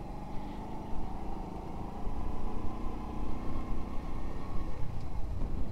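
Honda Pop 100 motorcycle's small single-cylinder engine running steadily at a constant pitch.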